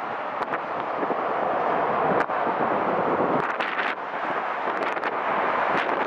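Strong gusty wind buffeting the microphone: a steady rushing with sharp crackling pops at several points.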